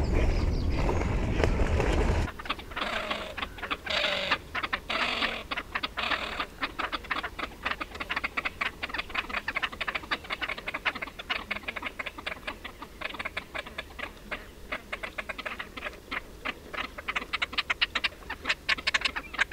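Water splashing loudly as birds thrash on the water, cut off about two seconds in. A fast, dense run of dry clicking follows and grows louder near the end.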